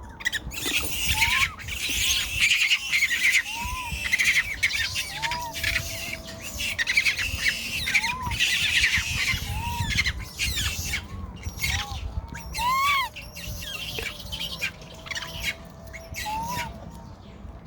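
Baby monkey crying: long bouts of shrill, rapidly pulsing screams for most of the first eleven seconds, then easing. Short rising-and-falling calls repeat every second or two throughout.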